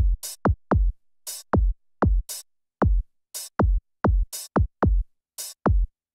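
Background music: a bare electronic drum beat, deep kicks falling in pitch alternating with a crisp snare-like hit about once a second, with short silences between the hits.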